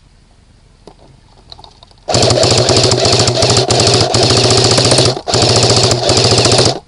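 Airsoft gun firing on full auto, close by: a fast, even rattle of shots in long strings that starts about two seconds in, with a few brief breaks before it stops just before the end.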